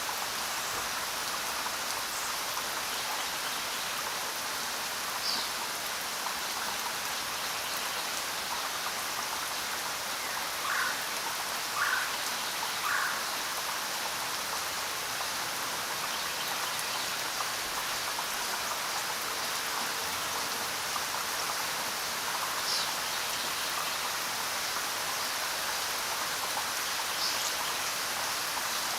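Steady rain falling, an even hiss, with a few brief, louder sounds scattered through it, three in quick succession near the middle.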